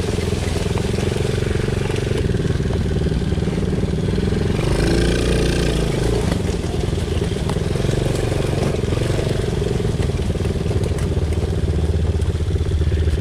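Small ATV engine running steadily while riding a wooded dirt trail, briefly louder about five seconds in.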